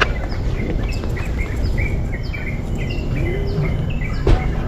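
Small birds chirping over and over, short high chirps and quick falling notes, over a steady low rumble, with a sharp knock near the end.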